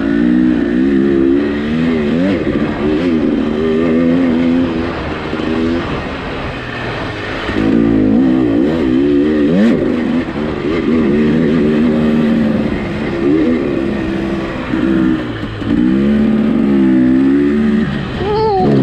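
Dirt bike engine under hard riding, its note rising and falling again and again as the throttle is opened and closed. It eases off about six seconds in and again around fifteen seconds before pulling hard once more.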